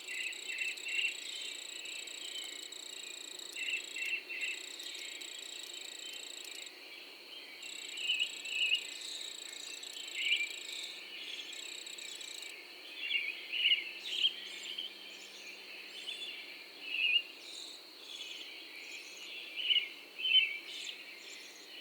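Morning birdsong: birds chirping in short, scattered bursts over a steady, high-pitched insect drone.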